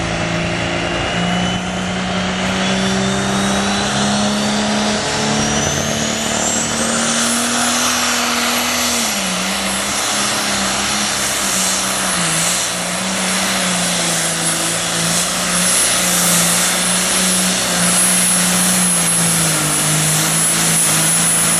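Super Farm class pulling tractor's turbocharged diesel engine running flat out at high RPM down the track, with a high-pitched whine that climbs over the first several seconds and then holds steady.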